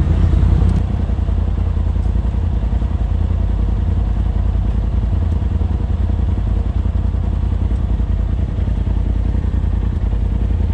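A Polaris RZR side-by-side's engine idling steadily, a low, even running sound, a little louder for the first second.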